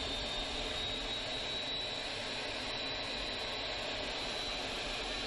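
Jet aircraft engine running steadily, heard from inside the cockpit: an even rush of engine and air noise with a thin high whine that rises slightly in pitch.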